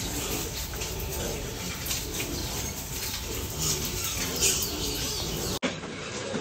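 A pen full of piglets grunting, with birds chirping. The sound breaks off abruptly near the end.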